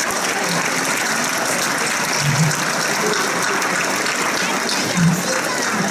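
Crowd applauding steadily, many people clapping at once.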